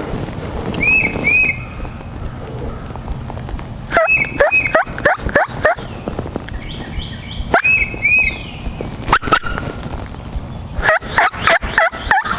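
Wild turkey gobbling: two rolling runs of rapid, falling notes, one about four seconds in and another near the end. Between them come shorter paired high calls and a couple of sharp clicks.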